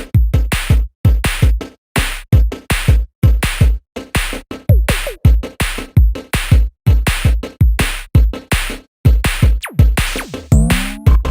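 Electronic intro music: a hard drum-machine beat with deep kicks, about four hits a second, with a few falling synth sweeps.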